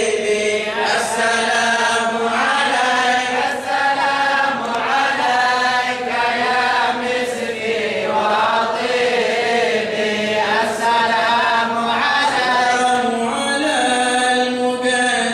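Male voices chanting a mawlid, a devotional poem in praise of the Prophet, in long, continuous melodic phrases.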